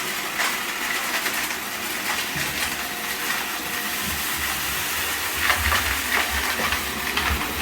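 Deenkee DK650 robot vacuum running: a steady whirring hiss of suction and brushes, with many small clicks and rattles as it picks up dry debris such as dog food and peanut shells, in an echoey room.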